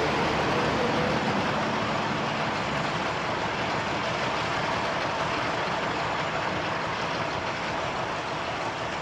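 An engine running steadily, slowly fading.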